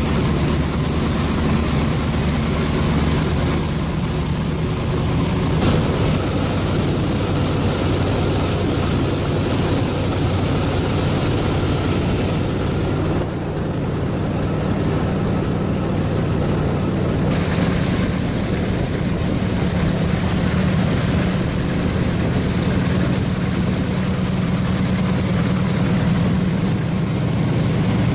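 Boat engine running steadily under way, with rushing wind and water noise over it; the engine note shifts slightly a few times.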